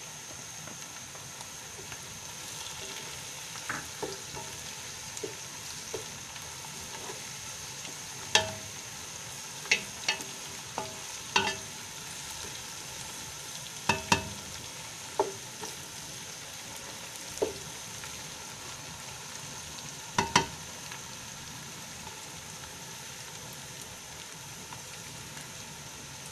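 Sliced onion, garlic and ginger paste sizzling steadily as they fry in oil in a large nonstick pot. A wooden spatula stirs them, knocking sharply against the pot a dozen or so times, loudest about eight, fourteen and twenty seconds in.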